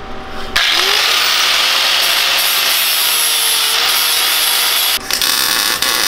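Handheld angle grinder spinning up about half a second in, then grinding the back sides of the steel mini bike frame clean: a loud, steady hiss with a motor whine held underneath. It drops off briefly near the end and bites in again.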